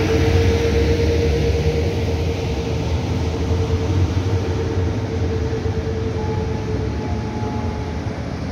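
PKP Intercity EP09 electric locomotive and its České dráhy passenger coaches rolling past along the platform: steady wheel and rail noise with a deep rumble. A steady tone runs under it and fades out about six seconds in.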